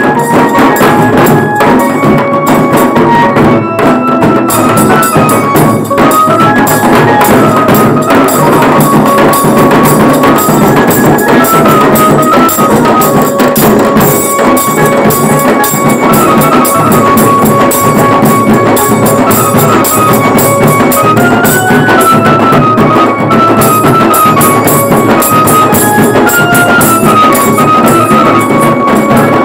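Bengali wedding band playing loud: a stepping lead melody over continuous drums and cymbals, recorded close on a phone microphone.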